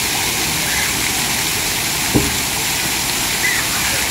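Splash-pad fountain jets spraying and splattering onto wet pavement: a steady hiss of falling water, with a single low thump about two seconds in.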